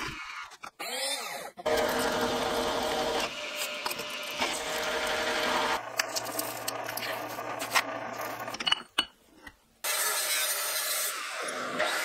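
Workshop power tools running in a string of short clips, the sound changing abruptly every second or two, with a few sharp knocks and brief gaps.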